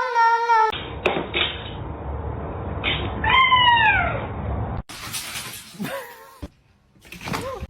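Domestic cat meowing: one long meow about three seconds in that falls in pitch, then shorter meows near the end.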